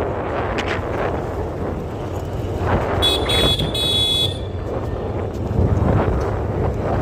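Road traffic rumble with wind buffeting the microphone, and a vehicle horn honking twice in quick succession about three seconds in.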